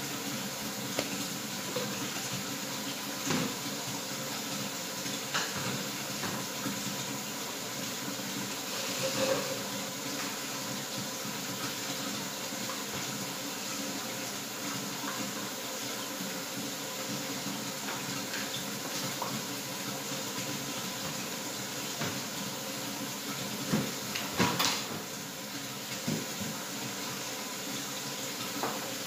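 Steady rushing background noise with a faint hum, broken by a few light knocks and clinks as metal cups and canisters on a tray are handled. The loudest clinks come about three-quarters of the way through.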